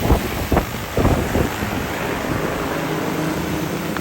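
DJI Agras T30 six-rotor spraying drone's propellers humming steadily, with wind buffeting the microphone in gusts during the first second and a half.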